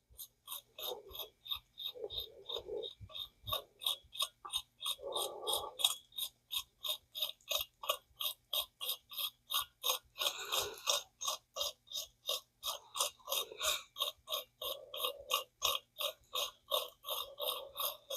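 Zebco 404 spincast reel clicking steadily, about three clicks a second, as old fishing line is stripped off it, with soft rubbing of the line between clicks.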